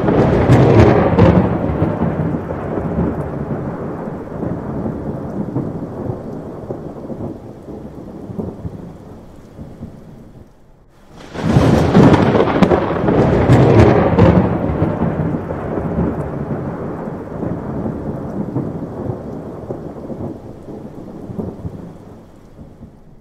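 Two long rolls of thunder with rain. The first is already loud at the start and dies away over about ten seconds. The second breaks in suddenly about eleven seconds in and fades out slowly.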